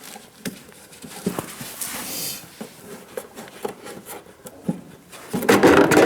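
Scattered light metallic clicks and knocks of hand tools on a snowblower, then a louder stretch of rough rustling noise near the end.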